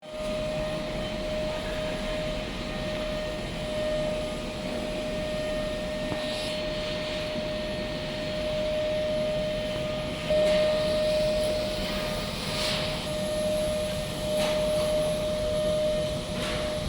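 CO2 laser cutting machine running, with a steady fan-like rush and a constant hum under it, and a few brief hissing swells.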